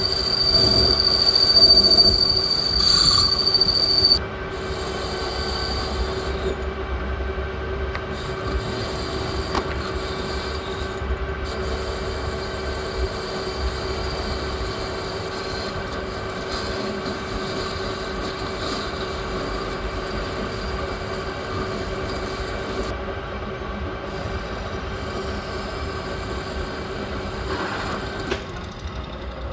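Lathe running with a steady mechanical hum, with a high-pitched squeal over it for the first four seconds that cuts off suddenly.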